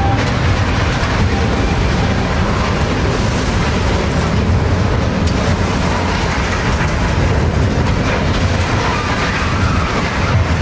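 Steady low rumble and road noise of a truck driving, heard from on board the truck.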